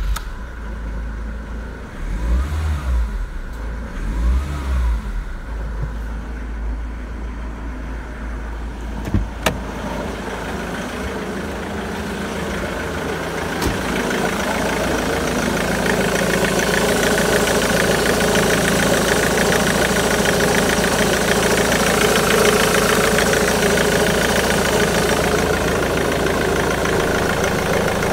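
Ford Mondeo Mk3 2.0 TDCi (N7BA) four-cylinder diesel engine catching right at the start, revved briefly twice a few seconds in, then idling steadily. The idle grows louder and brighter about halfway through as the open engine bay is approached.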